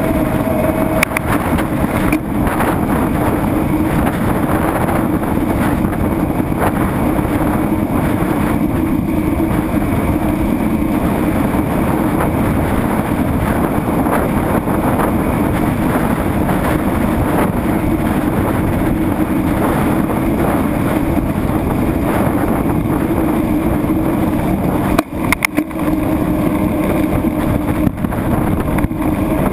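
Steady running noise of the vehicle carrying the camera as it travels along a street, a low hum under a constant rush of wind and road noise on the microphone, with a few brief drop-outs near the end.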